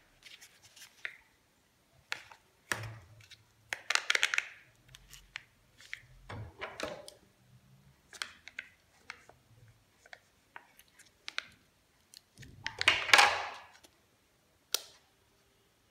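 Candy packaging being handled and opened: foil and plastic wrappers crinkling in several short bursts, the longest near the end, with scattered small clicks and taps of plastic pieces.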